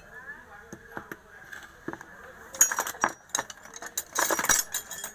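Small metal parts of a dismantled electric planer, such as bearings and tools, clinking and rattling as they are handled, in two bursts of quick clinks about two and a half and four seconds in.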